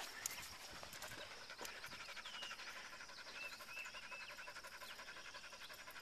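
A dog panting fast and steadily with her tongue out, tired out from a walk.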